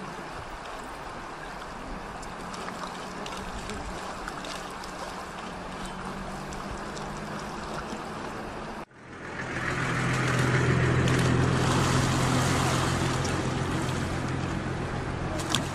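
A steady low motor hum under a rushing noise. It drops out suddenly about nine seconds in and comes back louder.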